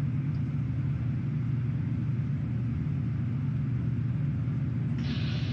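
Steady low rumble of a ship's engines and machinery, heard inside the vessel's control room. Near the end a radio channel opens with a hiss just before a voice comes through.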